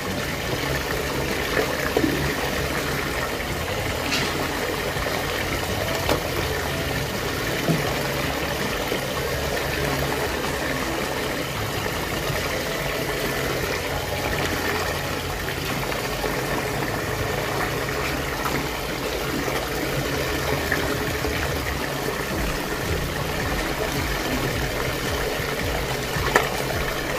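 Water rushing and swirling steadily around a whirlpool draining down a central hole, over a low steady hum, with a few short knocks.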